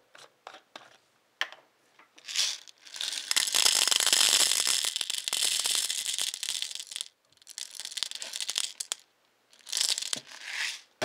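Dry jumbo popcorn kernels poured into a plastic measuring cup: a dense, rattling patter of kernels hitting the cup and each other for about four seconds, then a thinner trickle, with another short pour near the end.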